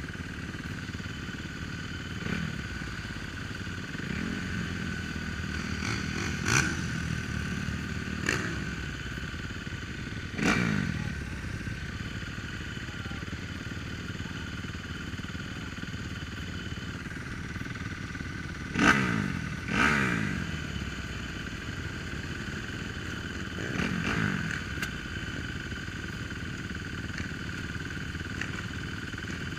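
Dirt bike engines idling, with about half a dozen quick throttle blips that rise sharply and fall back to idle, the loudest two close together about two-thirds of the way through.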